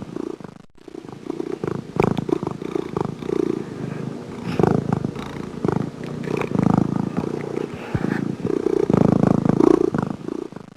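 A domestic cat purring close up, the low rumble swelling and fading in slow cycles as it breathes in and out, then cutting off at the end.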